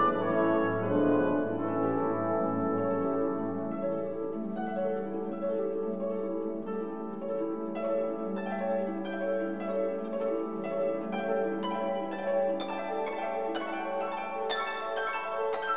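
Instrumental music: held, string-like notes, then plucked harp-like notes from about eight seconds in.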